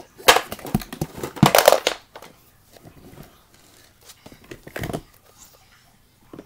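Rustling and crinkling of a fabric storage bin and the things inside it being handled, loudest in the first two seconds, with a shorter rustle about five seconds in.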